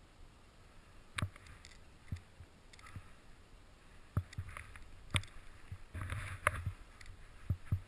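Skis running through snow on a downhill run, close to a camera worn by the skier: short bursts of snow hiss during turns, with irregular sharp knocks and thumps from the skier's movement, the busiest stretch about six seconds in.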